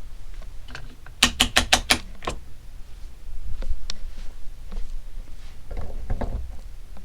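A quick run of about six clicks a little over a second in, like a five-speed fan control switch being stepped through its positions. A few scattered clicks follow over a steady low rumble.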